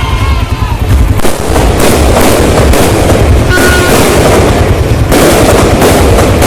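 New Year fireworks going off in quick succession: a dense run of booms and crackling bangs, heavy from about a second in.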